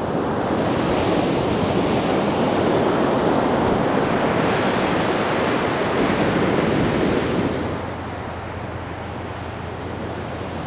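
Ocean surf breaking and washing up the beach, with wind on the microphone. About eight seconds in the noise drops to a quieter, steady hiss.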